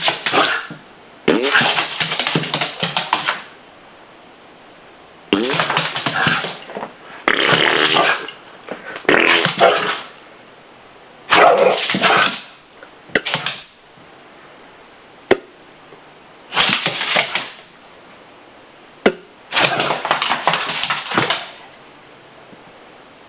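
Fart sounds: a run of about nine raspy bursts, each one to two seconds long, with short pauses between them. Two sharp clicks fall in the quiet gaps.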